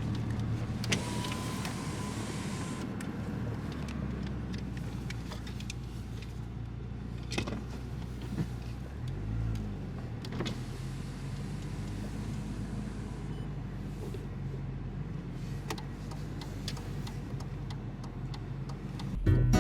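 Steady low engine hum and road noise inside a moving car, with a few light clicks and a brief rise and fall in the engine's pitch about nine seconds in.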